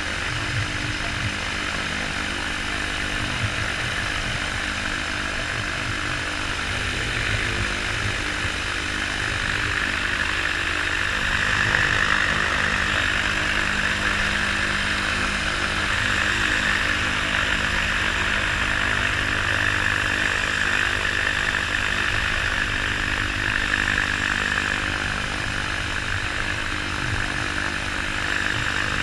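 Weight-shift microlight trike's engine and pusher propeller running at taxi power, a steady drone that grows a little louder about ten seconds in.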